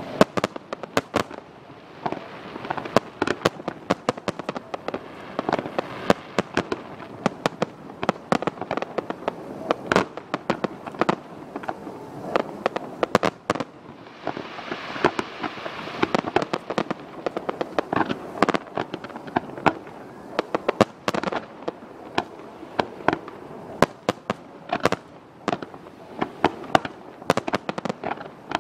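Fireworks display: a continuous run of sharp bangs and crackling bursts, many a second, with a thicker rush of crackle about halfway through.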